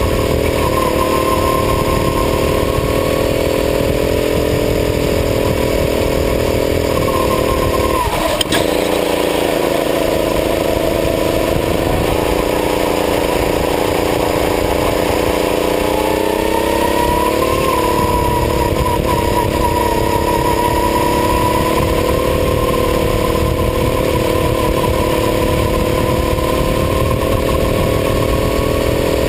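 Go-kart engine heard from onboard as the kart laps the track, engine speed high and steady, then falling sharply with a knock about eight seconds in as the kart slows for a corner. The revs build back up over the following seconds and hold high through the rest of the lap section.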